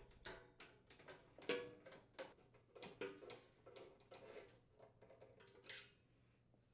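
Faint scattered clicks and light metal taps of screws being threaded by hand to fix the manifold assembly to the front of a gas range cooktop, a few of them with a brief metallic ring.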